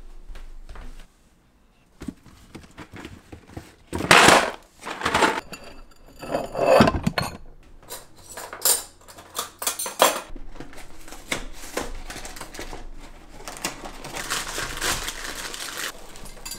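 Kitchen breakfast sounds: two loud clatters of dishes, then metal cutlery clinking in a drawer, then dry cereal pouring into a bowl as a steady rattling hiss for a couple of seconds near the end.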